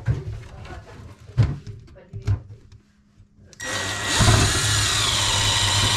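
A few short knocks, then an electric drill running steadily for about two and a half seconds in the second half.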